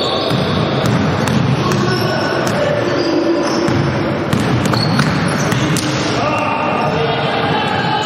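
Basketball game sounds in a large sports hall: a ball bouncing on the wooden court among the continuous shouts and chatter of players and spectators, with scattered sharp knocks.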